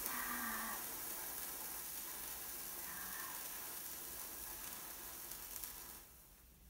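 Hand-held sparklers burning with a steady fizzing hiss that dies away about six seconds in as they burn down.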